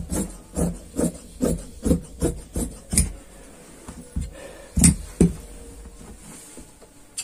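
Large tailor's shears snipping through fabric on a cutting table: a steady run of about eight snips, a little over two a second, for the first three seconds, then two louder clicks about five seconds in.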